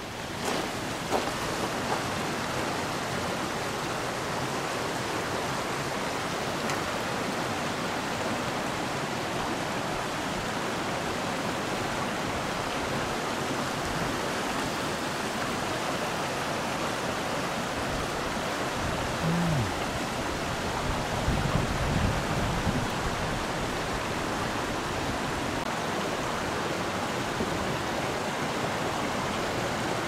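Steady rush of a shallow, rocky creek flowing over stones. A few low thumps come about two-thirds of the way through.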